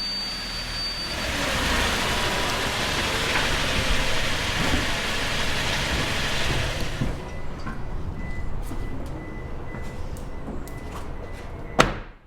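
Pickup truck running as it reverses off the safety switch mat; the mat's continuity beeper, sounding a high steady tone while the truck's weight presses the mat, cuts off about a second in. The vehicle noise is loudest for the first several seconds, then quieter, with a single sharp click near the end.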